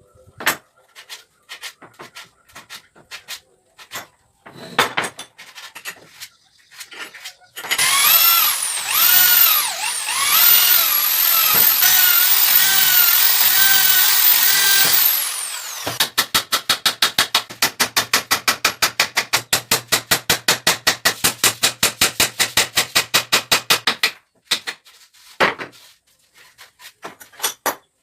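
Scattered knocks, then a handheld power tool's motor whines for about eight seconds, its pitch rising and dipping as the trigger is worked. A fast, even run of clicks follows, about eight a second, for another eight seconds, before more scattered knocks.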